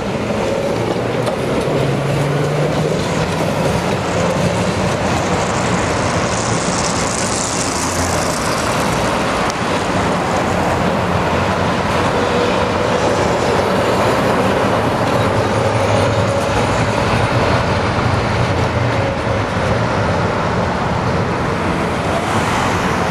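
Street tram of the KTM-19 (71-619) type running along street track amid road traffic: a steady rumble of wheels on rails, with a faint whine now and then.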